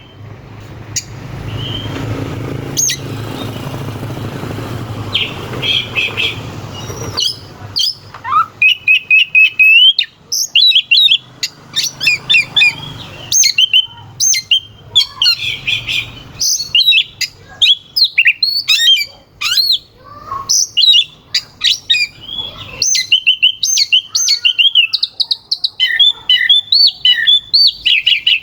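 Oriental magpie-robin (kacer) singing in full song, a fast run of loud, sharp whistles, trills and harsh chips. A steady low rumble with only scattered notes fills the first several seconds before the song takes over.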